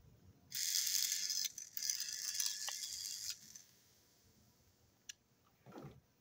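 A small battery-powered toy-train motor running in its chassis for about three seconds with a high-pitched whir, briefly cutting out twice, followed by a small click and some handling of the plastic parts.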